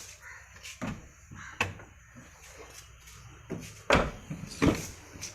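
Wagon R rear door being worked: several sharp clicks and knocks from the handle and latch, the two loudest about four seconds in, less than a second apart.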